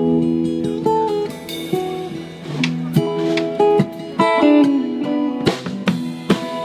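Live band music led by an acoustic guitar strumming and picking chords, with electric guitar and bass guitar playing along.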